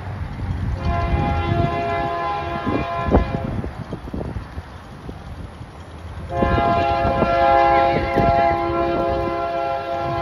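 Union Pacific freight locomotive's multi-chime air horn sounding two long blasts: the first starts about a second in and lasts some two and a half seconds, the second, louder one starts about six seconds in and is still going at the end. A steady low rumble runs underneath.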